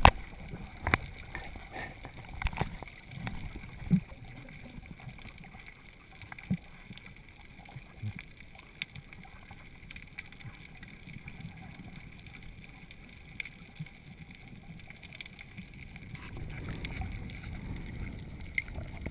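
Muffled underwater sound through a GoPro Hero II's waterproof housing: a low rumble of moving water with scattered sharp clicks and knocks. There is a faint steady high hum throughout, and the rumble grows louder near the end.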